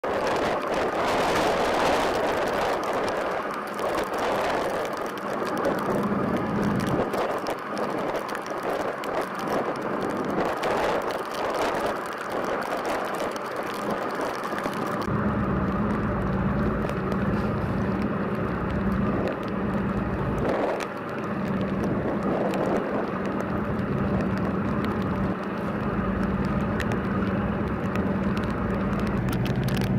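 Tugboat diesel engines running. For the first half there is a broad noisy wash; about halfway in, a strong steady low engine hum takes over.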